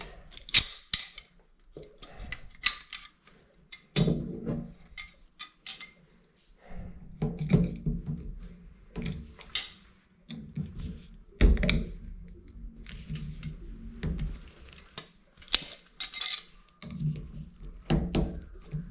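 Metal hand tools clinking, knocking and scraping against the brass fittings of a shower valve while a stuck bonnet nut and cartridge are worked loose; irregular sharp clinks, some loud, with a low hum under some stretches.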